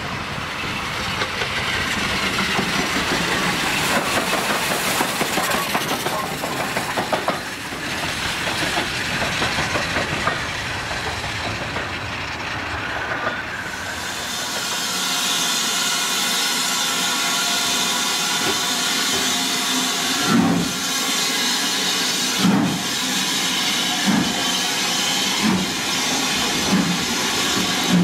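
A BR Standard Class 2MT 2-6-0 steam locomotive running up and passing, a rising rumble. Then a tender steam locomotive pulls its coaches out of a station, steam hissing, with regular thuds from the train that come gradually quicker as it gathers speed.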